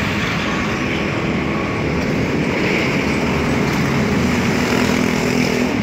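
Rebel 125 twin-cylinder motorcycle engine idling steadily and evenly.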